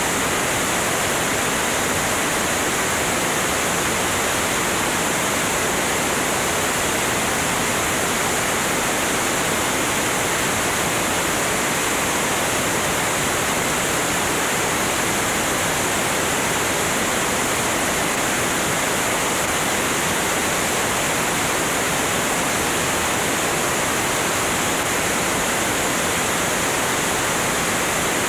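Steady rushing wind noise from the airstream over an externally mounted camera's microphone on a Cessna 205 in cruise flight at about 175 mph. It is an even, unbroken hiss with no distinct engine or propeller tone standing out.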